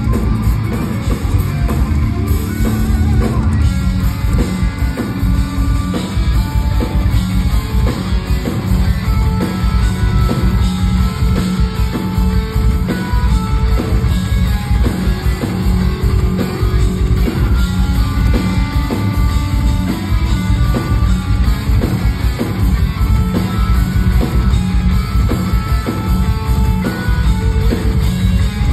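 Progressive metal band playing loud and live: intricate electric guitar over a busy drum kit, with no vocals.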